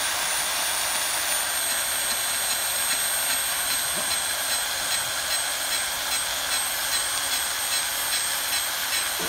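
C-type electric pipe beveling machine running steadily with a high motor whine as its cutter bevels the end of a metal pipe. It cuts smoothly and quietly, without squealing.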